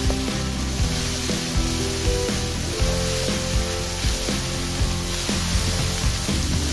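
Sliced onions and green chillies sizzling steadily in hot oil in a wok, under background music with a steady beat.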